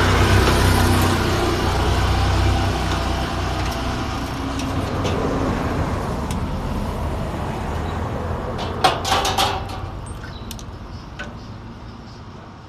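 A motor engine running with a steady low rumble that slowly fades away, like a vehicle moving off, with a few sharp clattering knocks about nine seconds in.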